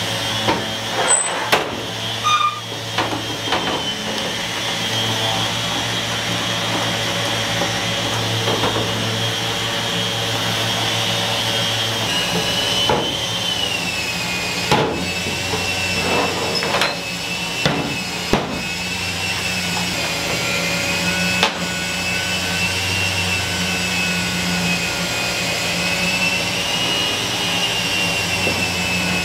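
A steady machine drone with a faintly wavering whine, like a shop vacuum or dust extractor running, under scattered sharp knocks and clatter as metal bar clamps are taken off a glued-up walnut panel and the panel is handled on the bench.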